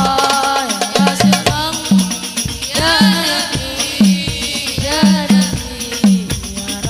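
Sholawat Al Banjari: hand-played terbang frame drums keep a steady beat of about two strokes a second under a young boy's sung melody, which winds up and down in long, ornamented runs.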